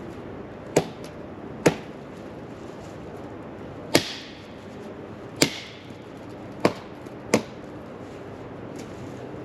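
Six sharp chopping strikes at uneven intervals; the third and fourth ring briefly after impact.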